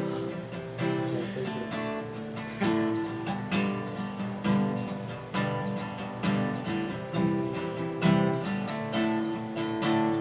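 Solo acoustic guitar strummed in a steady rhythm of chords.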